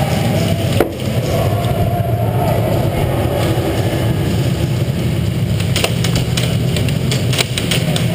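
Sharp clacks of airsoft fire and BBs hitting plywood walls: a single one about a second in, then a scattered cluster from about six to eight seconds in, over a steady low rumble.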